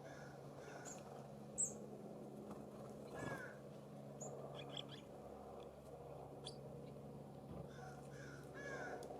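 Wild birds calling: short call notes repeated about twice a second at the start and again near the end, a sharp high chip about one and a half seconds in, and a louder call about three seconds in, over a faint steady low hum.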